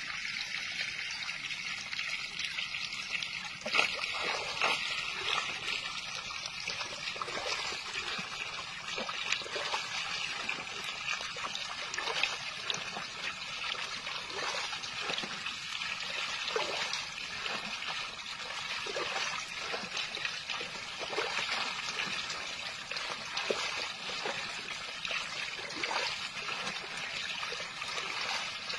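Shallow, muddy water trickling and splashing, with many small irregular splashes from about four seconds in as fish thrash at the surface.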